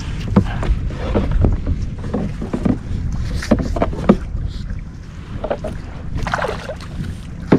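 Vibe Sea Ghost 130 sit-on-top kayak getting under way on open water: irregular splashes and knocks against the hull, over a steady wind rumble on the microphone.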